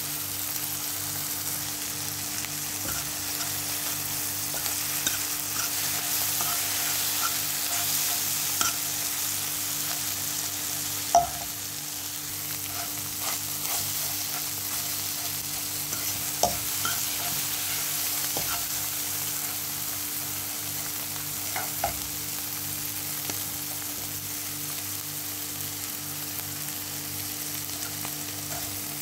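Eggs in tomato sauce sizzling steadily in a frying pan, with a metal utensil now and then scraping and tapping against the pan; the sharpest tap comes about eleven seconds in. A steady low hum runs underneath.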